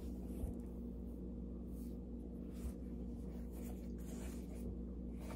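Faint rustling and light handling noise from a Puma Stewie 1 basketball shoe being turned over in the hands, with a couple of soft knocks, over a steady low hum.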